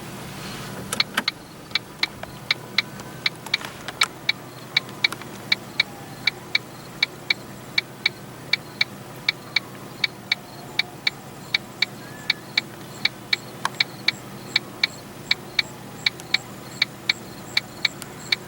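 Car hazard-light flasher ticking steadily, about two ticks a second, over the steady low hum of the car.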